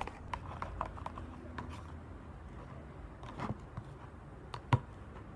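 A mixing tool stirring glue and shaving cream in a cup: irregular light clicks and taps of the tool against the cup, with one sharper click near the end.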